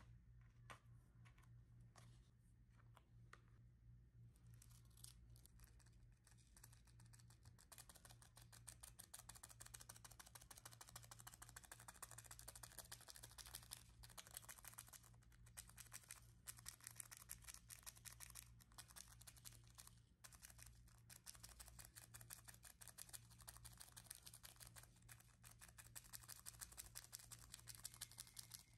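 Faint, rapid back-and-forth scratching on paper, as in coloring in. A few separate strokes come first, and it turns into dense, continuous scratching about four seconds in.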